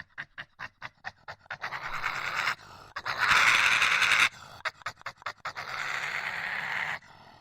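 Badger huffing in a quick series of short, sharp breaths, about five a second. It then gives three long, harsh hisses, the middle one the loudest.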